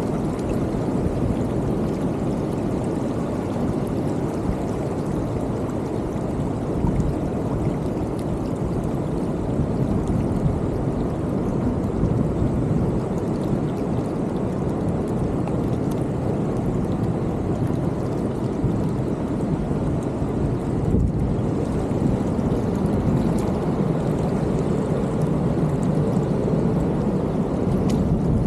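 A beach creek's water pulsing and surging down across the sand: a steady rushing wash of water noise.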